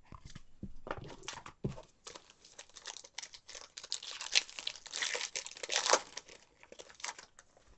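A foil trading-card pack wrapper being torn open and crinkled in the hands. It makes a dense run of small crackles, loudest about four to six seconds in.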